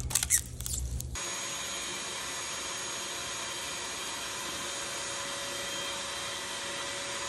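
Small shop vacuum running steadily, its nozzle drawn along aluminum extrusion slots to suck out loose metal flakes; the motor's steady rush with a fixed whine comes in about a second in.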